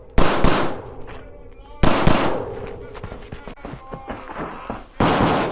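9mm CZ Shadow 2 pistol firing in quick pairs of shots (double taps): two pairs within the first two and a half seconds, then another shot near the end, each with a short echoing tail.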